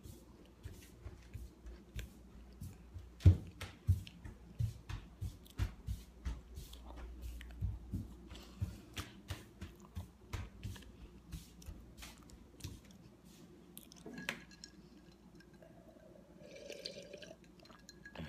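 Close-up wet mouth sounds of someone chewing and smacking food, a run of irregular clicks and smacks, with one louder knock about three seconds in.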